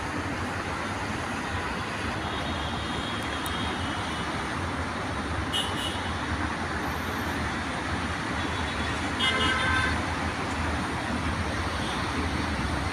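Steady hum of road traffic, with a short horn toot about nine seconds in.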